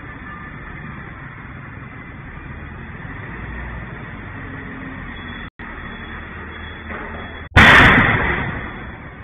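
A single loud bang about seven and a half seconds in, fading over about a second, over steady street traffic noise, picked up by a street CCTV camera's microphone. It comes from a concrete mixer truck as it passes and throws up a cloud by its wheels, typical of a tyre blowing out.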